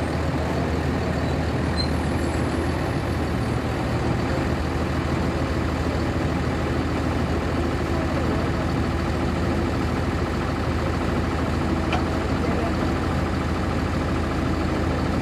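A 1999 NovaBus RTS transit bus's Cummins ISC diesel engine, heard from inside the bus, running steadily with an even low hum and no revving.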